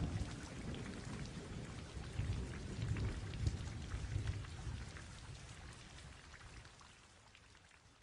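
Rain falling with a low rumble of thunder, fading out gradually until it is almost gone near the end.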